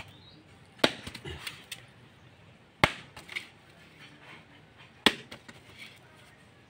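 A bolo knife striking a husked mature coconut to crack the shell open, three sharp blows about two seconds apart, each followed by a few lighter knocks.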